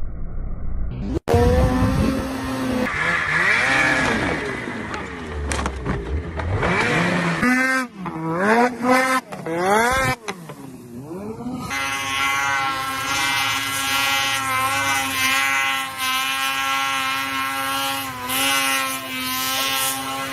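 Snowmobile engines revving hard across a series of short crash clips, the pitch rising and falling sharply with abrupt cuts. In the second half one engine is held at high, steady revs.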